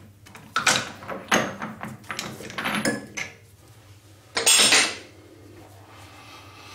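Metal-on-metal clanks and scrapes as a lathe chuck is opened with its key and the steel workpiece is taken out of the jaws: a handful of separate sharp clinks, the loudest about four and a half seconds in.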